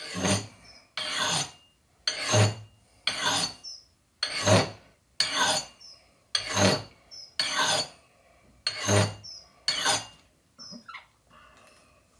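Carving-axe edge drawn along ceramic sharpening rods: about ten rasping strokes, roughly one a second, honing a micro bevel onto the edge.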